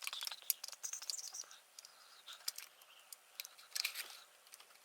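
Clear plastic clamshell packaging being forced open by hand: scattered sharp plastic clicks and crackles, with a cluster of clicks a little before the end.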